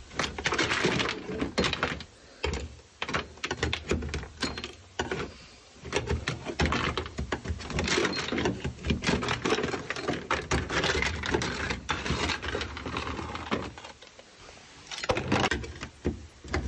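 A hand scraper chips and pries dry-ice-frozen sound-deadening material off a car's steel floor pan. It makes rapid, irregular scrapes, clicks and cracks as the material breaks loose, with a quieter stretch shortly before the end.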